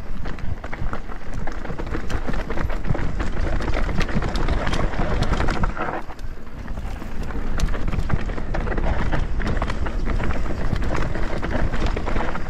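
Mountain bike riding down a rough dirt and rock trail: the tyres rumble and crunch over the ground, with frequent knocks and rattles from the bike.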